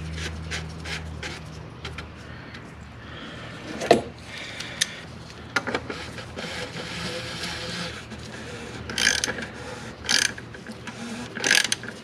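Socket ratchet clicking in short bursts while the plastic oil filter housing cap of the 3.6L Pentastar V6 is screwed back in, with scattered knocks of tool handling.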